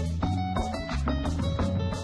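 Background music: an upbeat instrumental with plucked guitar over a bass line and a steady beat.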